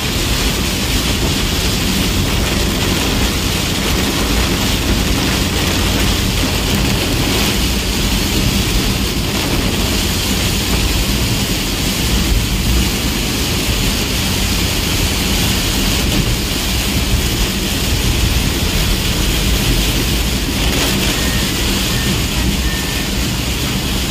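Steady engine and tyre rumble inside a moving bus on a wet road, with heavy rain on the windscreen.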